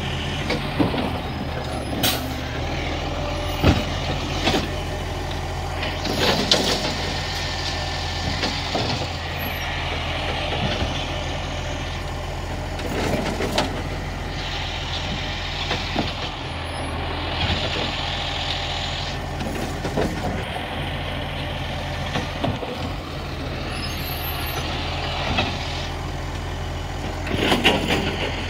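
Side-loading recycling truck running steadily while its hydraulic arm holds a bin tipped over the hopper. Sharp knocks come in the first few seconds, and several bursts of air hiss follow.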